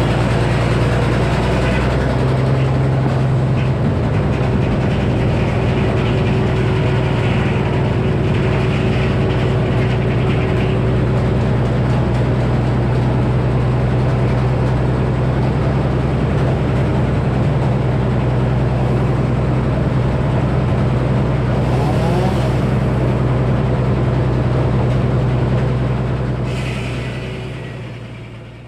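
Frick circular sawmill running, powered by a Minneapolis Moline engine that runs steadily with a deep, even hum. The sound fades out near the end.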